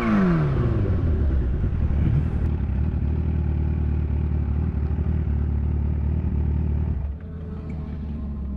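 Kawasaki Ninja H2's supercharged inline-four: revs fall away from a throttle blip at the start, then it idles steadily. The idle gets quieter about seven seconds in.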